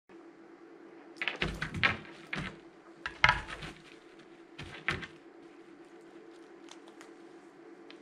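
Several short bursts of knocks and clatters as a Harris's hawk steps from the glove onto a wooden food puzzle toy and works its plastic pegs, over a steady low hum.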